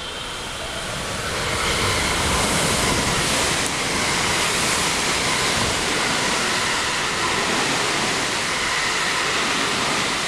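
JR West 225 series and 223 series 2000s Special Rapid Service electric train passing through the station at speed without stopping: a loud rush of wheels on rail and air with a faint high whine. It builds over the first two seconds, holds, and starts to fade near the end.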